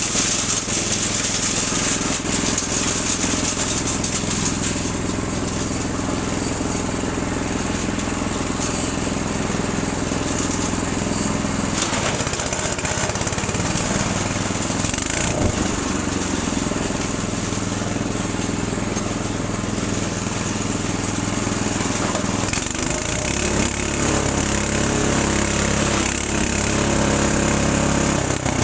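The 6.5 hp engine of a Breckner wood chipper running steadily, its pitch shifting about twelve seconds in and again near the end, with a few short sharp cracks.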